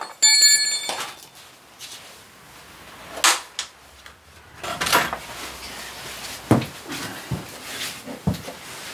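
Metal tools and parts clanking: a sharp clank that rings briefly near the start, then scattered knocks and clunks as parts are handled.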